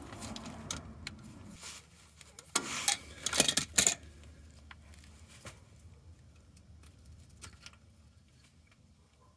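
Hand tools and small parts being handled: a burst of clinking and rattling about two and a half to four seconds in, then a few faint clicks.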